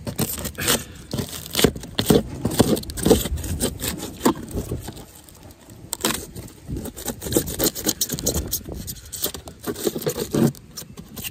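Small hand saw rasping through the delaminated wood skin and styrofoam core of a pop-up camper roof, in quick irregular strokes, with a short pause about five seconds in.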